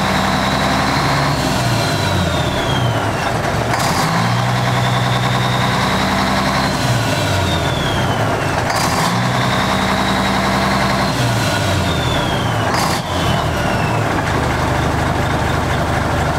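Mack diesel engine of a 1985 R Model dump truck running at its exhaust stack, its speed swinging up and back down three times. Each time a high turbo whistle rises and then falls away, and a short sharp sound comes near the end.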